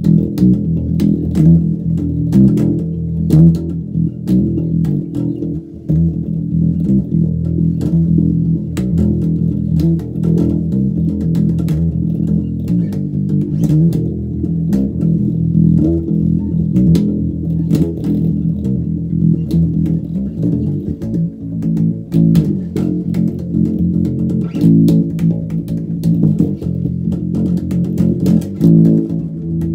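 Electric bass played fingerstyle: a metal riff of quick plucked notes, with sharp clicks of the fingers against the strings.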